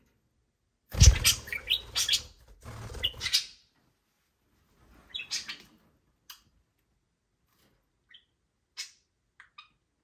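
Budgerigars chirping: a loud, busy stretch of chirps and fluttering from about a second in, then a few scattered short chirps.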